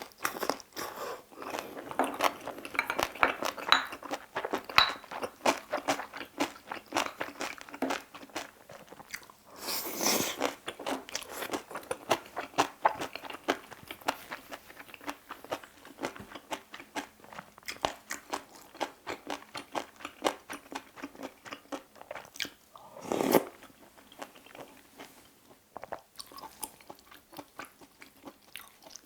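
Close-miked chewing of bibimbap, with a continuous run of crunching and wet mouth clicks from the crisp vegetables and rice. Two louder, longer bursts of sound stand out, about a third of the way in and about four-fifths of the way in.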